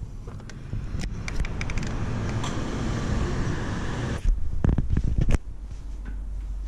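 Street traffic noise swelling for a few seconds with a few sharp clicks, then several loud low thumps about two-thirds of the way in, and a low steady rumble after.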